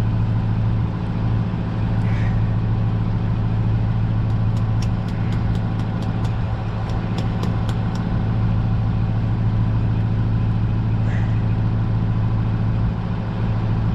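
Steady low mechanical hum of a running machine. Through the middle comes a quick run of about a dozen light clicks, roughly four a second.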